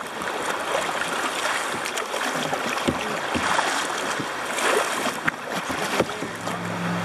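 River water rushing and splashing past a kayak's hull as it runs through a shallow rapid, a steady hiss with short splashes now and then.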